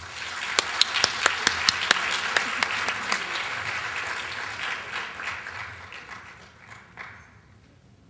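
Audience applauding, with several sharp, close claps standing out in the first two seconds; the applause dies away over the last three seconds.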